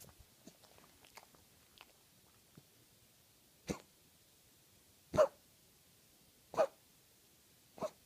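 Beagle coughing: four short, sharp coughs about a second and a half apart, the second the loudest.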